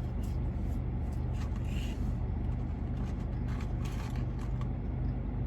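Steady low hum of a car's idling engine heard inside the cabin, with a few faint clicks.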